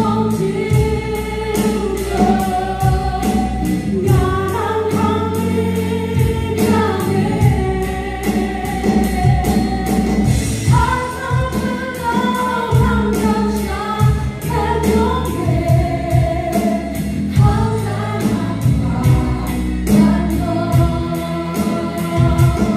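Live gospel worship song: a woman sings lead with a group of backing singers, over a band with drums keeping a steady beat, bass guitar and acoustic guitar.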